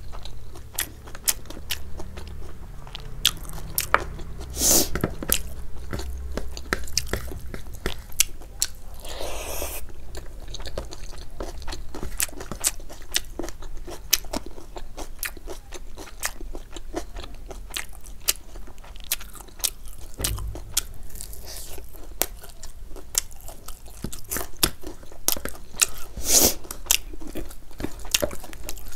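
Close-miked chewing and crunching of crisp food, a rapid run of sharp crunches and mouth noises, with louder crunches about five seconds in and near the end.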